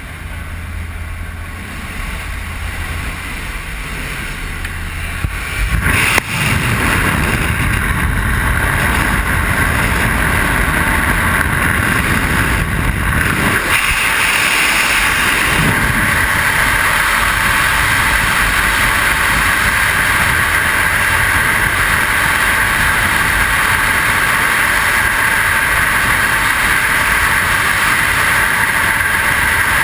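Small jump plane's engine and propeller wash at the open door, getting louder about six seconds in as the jumpers move out into the airstream. After the exit, about halfway through, a steady rush of freefall wind over the microphone.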